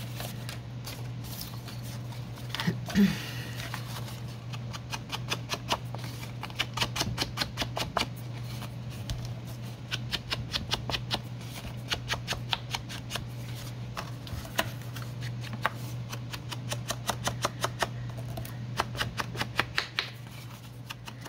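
A wine cork used as an ink dauber, tapped again and again against the edge of a sheet of paper and an ink pad, in runs of quick, light taps several a second.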